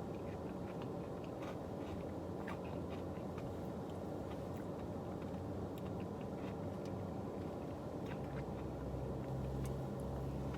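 Car air conditioning blowing steadily, with scattered small clicks and scrapes of a spoon in an ice cream cup and chewing.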